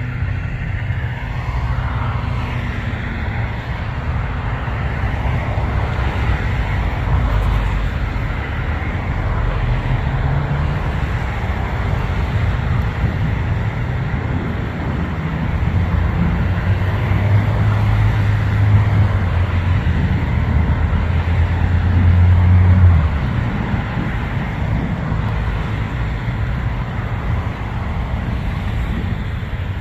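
Steady low rumble of engines and road traffic. A deeper steady hum builds in the middle and stops abruptly about three quarters of the way through.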